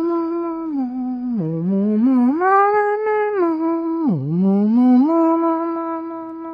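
A person humming a wordless tune in long held notes that slide up and down between pitches, with a sharp downward swoop about four seconds in.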